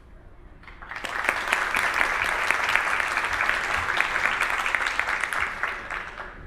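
Audience applauding. The clapping builds about a second in and dies away near the end.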